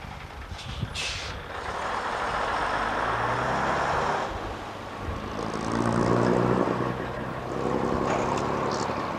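Bristol RE single-deck bus's diesel engine running as it pulls round, a steady hum that grows louder past the middle, with a rush of road noise early on and short hisses of air about a second in and again near the end.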